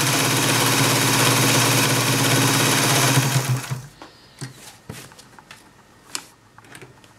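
Adler 189A vintage West German sewing machine, a belt-driven full rotary-hook machine, running fast and steady while stitching fabric. It stops about three and a half seconds in, and a few light, separate clicks follow.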